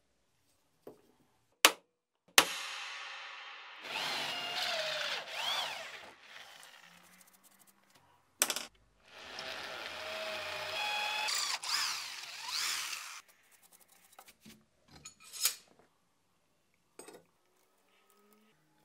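Electric drill boring into steel in two runs of several seconds each, with a wavering squeal as the bit cuts. Sharp knocks of metal parts being handled come before, between and after the runs.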